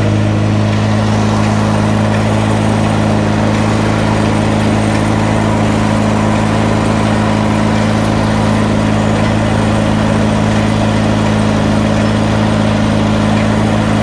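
Allis-Chalmers farm tractor engine running steadily at a constant speed, driving the sawmill through a flat belt off its belt pulley.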